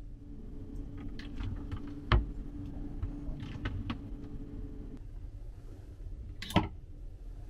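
Wooden clothes hanger and fittings of a wooden locker being handled: a scatter of small clicks and taps, with two sharp knocks, about two seconds in and near the end. A low steady hum runs under the first five seconds, then stops.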